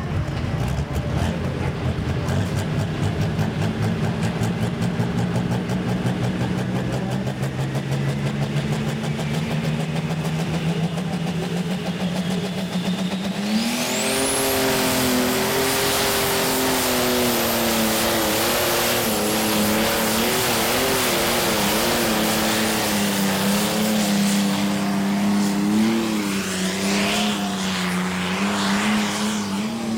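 Diesel pulling tractor under full load hauling the weight-transfer sled, its engine note climbing slowly. About halfway through it gets louder, a high whine sweeps up and holds, and the engine note wavers up and down as the pull goes on.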